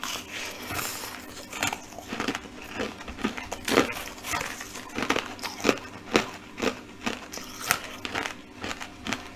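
A person chewing a mouthful of crushed dyed ice, with irregular crisp crunches about twice a second.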